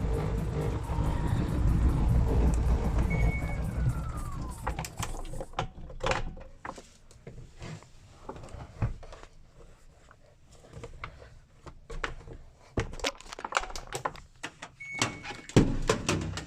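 Inside a moving car, a loud low rumble and music fill the first few seconds. Then the sound drops and a loose small door rattles, with many irregular sharp knocks and clicks.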